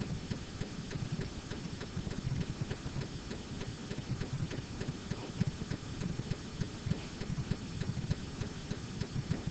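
Pen stylus tapping and scraping on a writing tablet as handwriting is put down stroke by stroke: many small irregular clicks over a steady low rumble.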